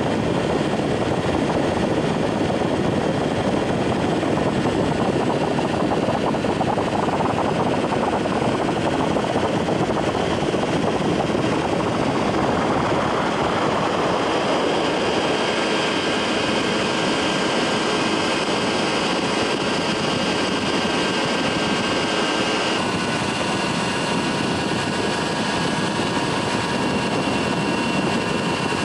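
Ultralight aircraft engine running steadily in flight, heard on board under a constant rush of wind noise. A faint steady whine comes in about halfway through and shifts slightly near the end.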